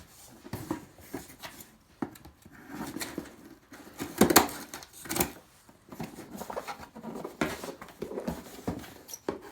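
Irregular clicks, taps and rustles of a small box and its packaging being handled and opened by hand, with the loudest scrape about four seconds in.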